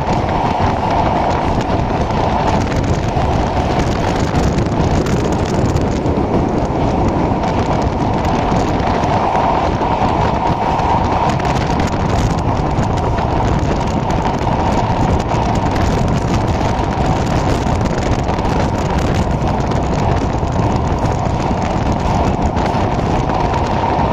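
Passenger train running at speed on an elevated viaduct, heard through an open carriage window: a steady rush and rumble of wheels on the rails, with a mid-pitched hum that swells and fades a few times.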